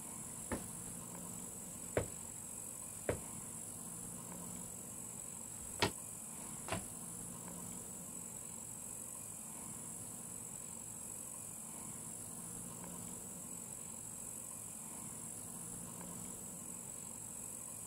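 Steady high-pitched chirring of insects, with five sharp knocks in the first seven seconds.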